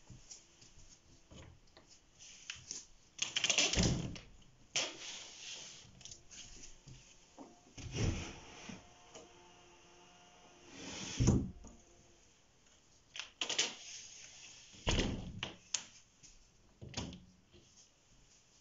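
PVC inner secondary-glazing window being slid open and shut inside a sash window: a series of separate sliding scrapes and knocks as the frame moves and seats, the loudest knock about two thirds of the way through.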